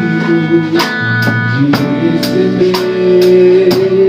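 A live band playing an instrumental passage of a worship song: held guitar chords over bass, with the drum kit hitting about twice a second.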